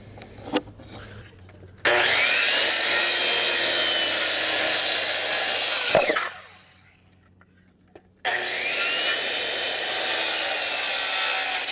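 Corded DeWalt circular saw crosscutting 2x8 lumber twice. Each cut starts with the blade whining up to speed and runs as a loud, steady rip through the wood, about four seconds for the first and three and a half for the second. A sharp knock comes as the first cut ends, then a pause of about two seconds.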